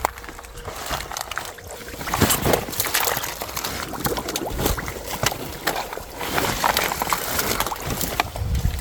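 Water sloshing and splashing in uneven bursts.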